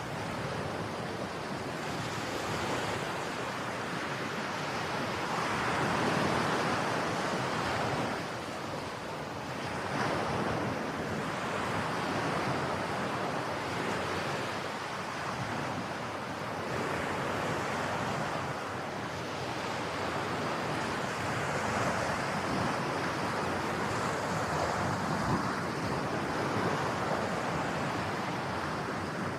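Ocean waves breaking and washing on a beach, a continuous surf that swells and eases every few seconds, with some wind.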